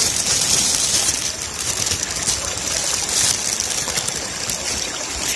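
Plastic bag holding live wader fish crinkling and rustling close to the microphone: a steady hiss with many small clicks.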